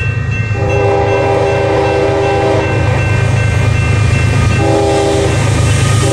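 Canadian Pacific freight train's diesel locomotives approaching and sounding the air horn, a chord of several notes: one long blast about half a second in, a short blast near the end, and another starting just as the lead unit comes alongside. Under the horn runs the steady low rumble of the diesel engines.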